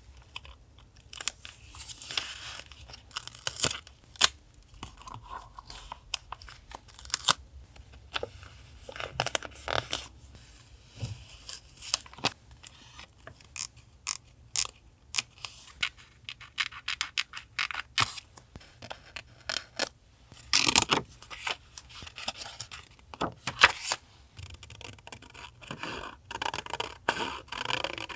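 Paper being handled for a journal collage: irregular tearing, scraping and cutting sounds with many short, sharp clicks and rustles, and a louder stretch of rustling about two-thirds of the way in.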